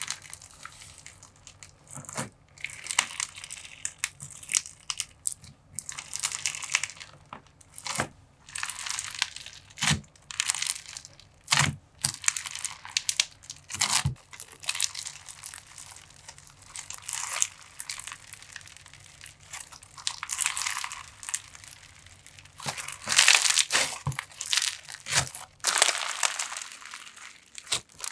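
Bingsu bead slime being poked, pressed and stretched by hand: a dense crunching and crackling of the small plastic beads in irregular bursts, with a few sharper clicks.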